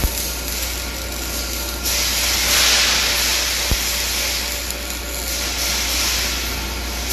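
Arc welding on steel: a steady hiss from the arc, louder for a few seconds in the middle, over a low hum, with a sharp click about halfway through.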